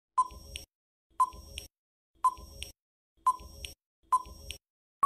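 Quiz countdown-timer sound effect: five short beeps about a second apart, counting down from five to one.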